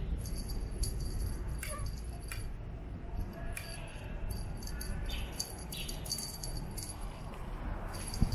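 Small bell on a cat wand toy jingling on and off as the toy is waved and batted by kittens, over a low rumble; a single knock near the end.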